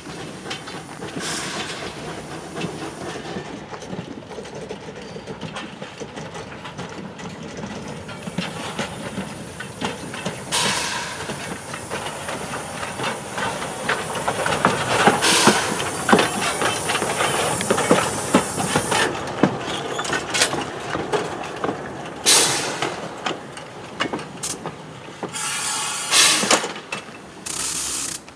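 Small steam tank locomotive running light over the tracks: steady running noise with hissing steam that grows louder in the middle, and several sharp bursts of steam in the last few seconds.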